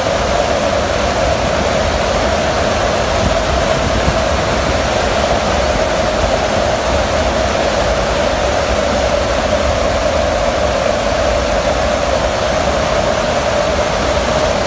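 Steady wind and engine noise in the open cargo hold of a transport aircraft in flight, with a constant drone running under the rush of air.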